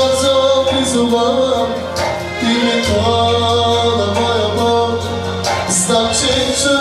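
Background music: a song with singing, long held melodic notes over a steady bass.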